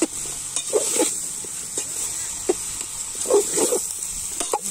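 Chopped raw jackfruit sizzling in a metal pot on a wood fire as a spoon stirs it, with a steady high hiss. Short animal calls, like a dog barking, break in several times, most in a cluster near the end.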